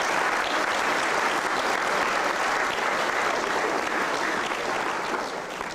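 Audience applauding steadily in a school hall, then cut off abruptly.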